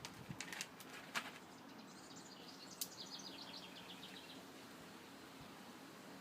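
Quiet background with a bird's rapid series of short high chirps lasting about two seconds midway, and a few faint clicks in the first second.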